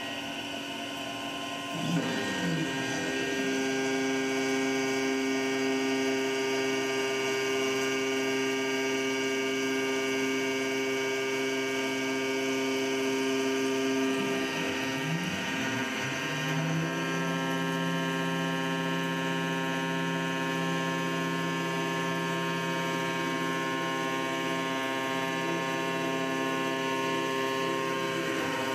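Langmuir MR-1 gantry CNC mill's spindle driving a 3/8-inch two-flute carbide end mill at 8000 RPM through aluminium in an adaptive clearing pass: a steady whine of several tones, its pitch dipping briefly and recovering a few times.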